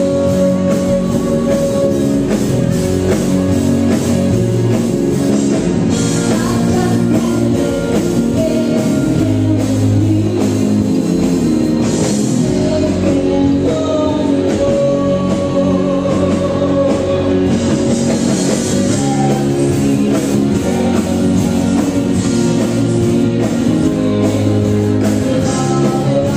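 Live rock band playing a song: a woman singing over electric guitar, bass guitar, drum kit and keyboard, steady and loud.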